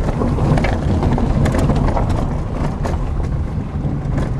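A Dacia Logan running at low speed on a loose gravel and stone track, heard from inside the cabin: a steady engine and road rumble with scattered crunches and ticks of stones under the tyres.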